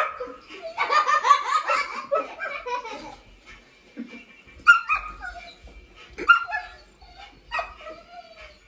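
A dog barking in short, sharp barks, a thick run of them in the first couple of seconds, then single barks a second or so apart.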